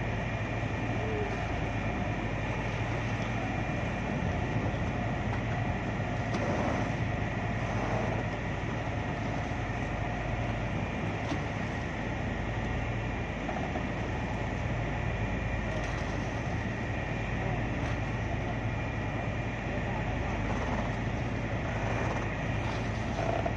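A crew boat's engines running steadily as it holds alongside a boat landing, a constant low hum with a thin higher whine over it.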